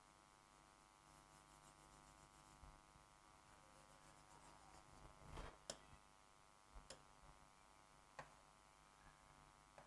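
Near silence with a faint steady electrical hum, broken by a few soft taps of a stylus on an interactive touchscreen board, first about halfway through and then twice more near the end.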